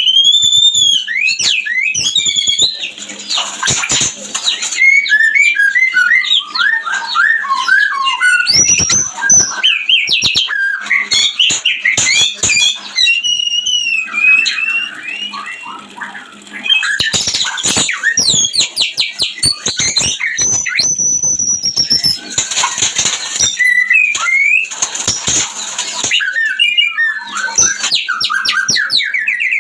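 White-rumped shama (murai batu) in breeding condition singing a long, varied song of clear whistles, rapid trilled runs and gliding notes, broken by harsh rasping notes. The song dips briefly quieter about halfway through.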